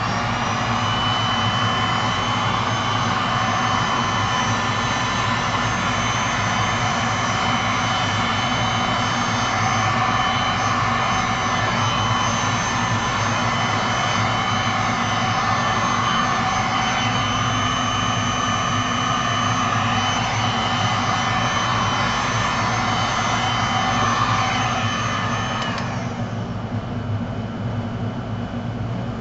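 Handheld electric heat gun blowing steadily, with a faint high whine over the rush of air; it is switched off about three seconds before the end.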